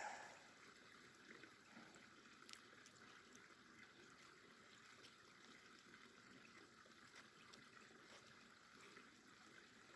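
Near silence, with faint scraping and a few light ticks as a Swiss Army knife blade shaves fine curls from a piece of fatwood.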